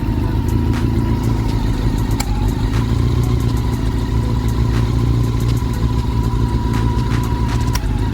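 Honda CB400 Super Four inline-four engine idling steadily after a start, with a few sharp clicks over it. It is running on swapped camshafts and cam holder fitted to cure a ticking from the cylinder head, which the mechanic thinks now looks okay.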